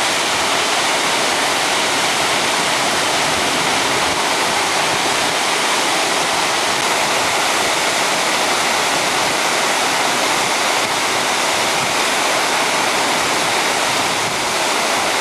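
Partly frozen waterfall rushing, an even, unbroken wash of falling water.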